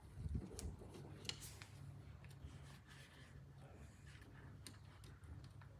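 Faint scattered clicks and small taps from hand tools and parts being handled during a carburetor teardown, over a low steady hum.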